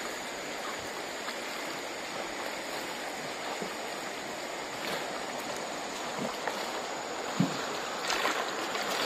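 River water flowing steadily, with a few short knocks in the second half.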